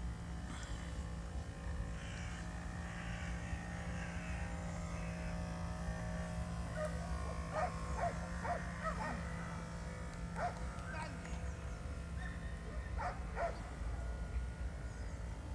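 Outdoor ambience with a steady low rumble and faint hum, broken by a run of short animal calls from about halfway through and again near the end.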